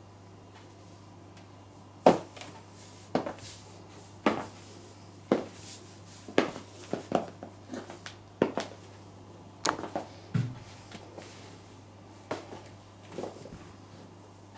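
Stiletto heels clicking on a ceramic tile floor as a woman steps about, sharp separate clicks roughly once a second, some in quick pairs, starting about two seconds in.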